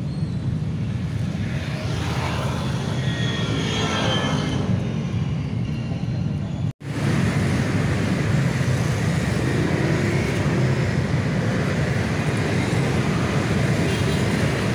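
Steady rumble of motor traffic, engines running without a break, with a faint rising and falling whine in the first few seconds; the sound cuts out for an instant about seven seconds in.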